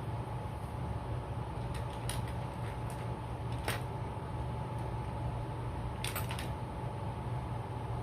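Steady low background hum, with a few light clicks and taps from fishing lures and a plastic tackle box being handled.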